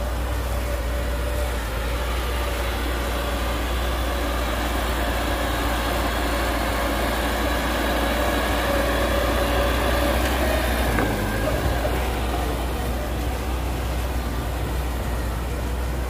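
Heavy earthmoving machinery's diesel engine running steadily with a deep rumble, its note rising slightly toward the middle and briefly changing about eleven seconds in.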